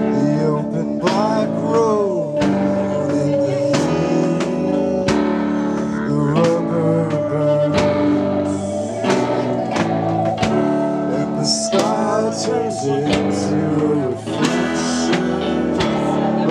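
Rock band playing live: electric guitars and keyboard over a steady beat, with a male voice singing.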